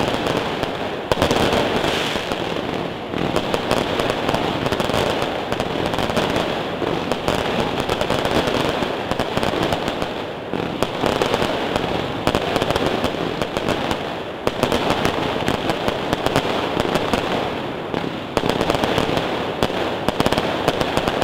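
Fireworks going off in a dense, continuous barrage: rapid bangs and crackle from bursting aerial shells and spraying fountains.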